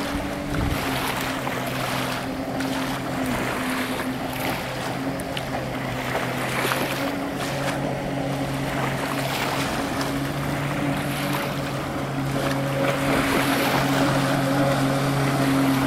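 Boat powered by a supercharged Sea-Doo 215 jet-ski engine, running fast and steady on the plane: an even engine drone over the rushing hiss of the jet spray and water. It gets louder over the last few seconds as the boat passes close.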